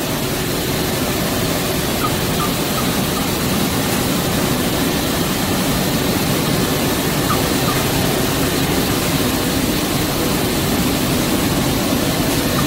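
Rotogravure printing press running at production speed: a steady, loud mechanical din from its rollers and drives, with a faint steady high tone over it.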